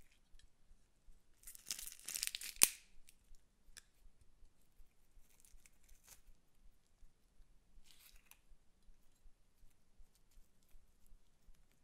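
Sticky slime crackling and tearing as it is squeezed in a metal garlic press, loudest for about a second near the start and ending in one sharp click. Two fainter crackles follow later.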